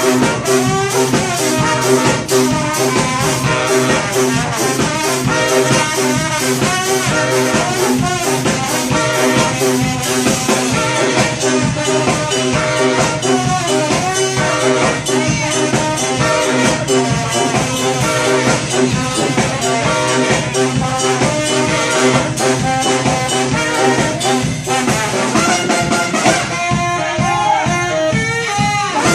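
Brass band playing up-tempo music live: trumpet, trombone and saxophone lines over a steady drum beat.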